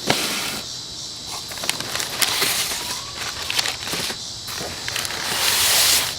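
Rustling and crinkling of packing material as hands rummage through a cardboard shipping box, with scattered sharp clicks and knocks. The rustle swells louder near the end.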